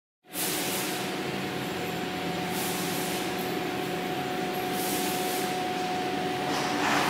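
Ricardo TAD100GE diesel engine of a 100 kW generator set running at a steady speed, with a steady whine over the engine noise, growing a little louder near the end.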